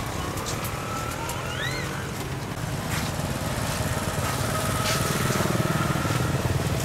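A small engine running steadily with a low, evenly pulsing rumble, with scattered clicks and a brief chirp about one and a half seconds in.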